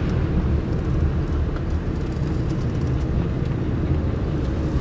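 Tata Nexon on the move: a steady, loud low rumble of driving noise, road and wind.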